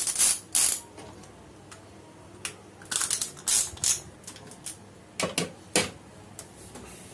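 Short clicks and clacks of a Shimano Bull's Eye spinning reel being handled as a spool is fitted onto it, in clusters near the start and around the middle, then two sharper knocks as the reel is set down into a plastic scale bowl.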